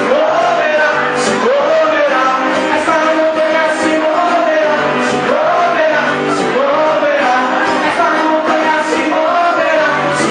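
Live gospel band playing an upbeat song with a lead vocal and full band accompaniment, with a cymbal struck about every second and a half.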